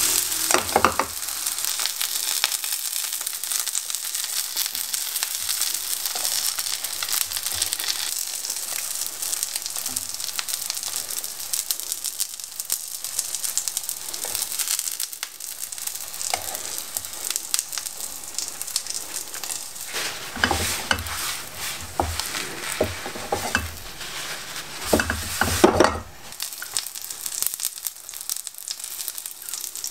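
Hot oil sizzling steadily under egg-battered oyster pancakes frying in a pan. There are a few sharper clicks and louder spells of sizzling just after the start, about two-thirds of the way through, and again near the end.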